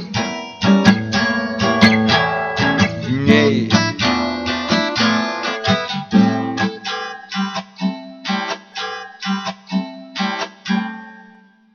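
Acoustic guitar playing the closing bars of a song: chords and single plucked notes that slow and die away, stopping just before the end.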